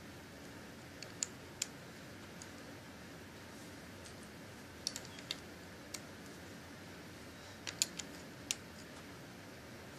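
LEGO bricks clicking as hands handle the model and press pieces on: scattered sharp plastic clicks in small clusters, about a second in, around five seconds and near eight seconds, over a faint steady hiss.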